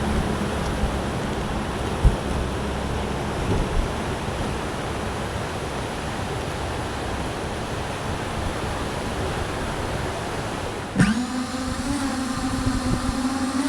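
Steady rushing wind noise. About eleven seconds in it gives way to electronic music, with held tones and a rising sweep near the end.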